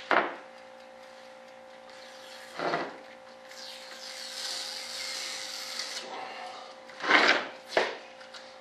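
Hand tool prying and scraping a parting plane off the edge of a model-jet mold part. There is a sharp knock right at the start and another about two and a half seconds in, a longer hissing scrape in the middle, then two sharp scrapes close together near the end.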